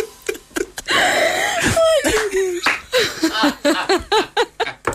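People laughing in short, quick bursts with breathy gasps between them, out of breath after singing and dancing.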